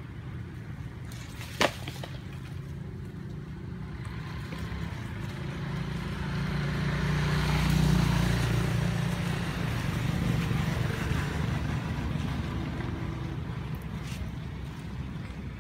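A motor vehicle passing on a nearby road: a low engine rumble and tyre noise that swell to their loudest about halfway through, then fade. A single sharp click about a second and a half in.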